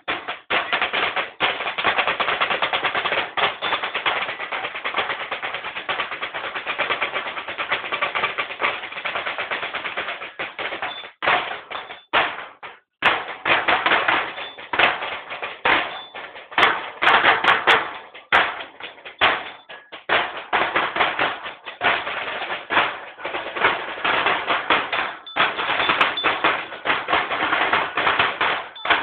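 Marching drums of a drum corps played with sticks in fast, dense rhythms and rolls, with a brief break about twelve seconds in.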